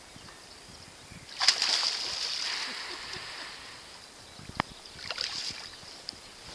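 Water splashing sharply at the surface about a second and a half in, then sloshing as it fades over a second or so: a northern pike swirling and lunging at the lure in shallow water, missing it.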